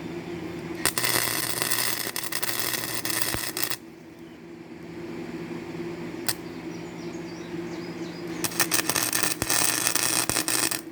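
Gasless flux-core wire welder laying two short beads: the arc crackles for about three seconds, stops, then crackles again for about two seconds near the end, over a steady low hum.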